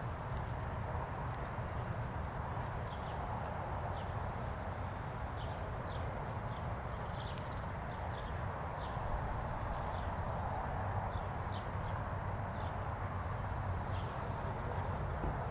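Distant Federal Signal 2001 outdoor warning sirens sounding a steady alert, heard as a faint, continuous wash of tone over a low rumble. Birds chirp many times throughout.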